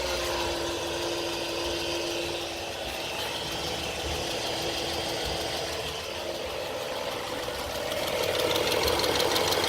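BMW F10 535i's turbocharged inline-six engine running, with a steady whine plus a fast ticking rattle; about eight seconds in it gets louder and the whine rises in pitch. The rattle is the weird noise the owner is trying to trace.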